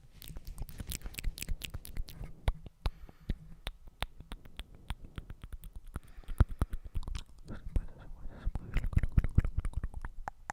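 Close-miked ASMR mouth sounds: rapid wet clicks and smacks, many a second, with a quieter stretch a few seconds in.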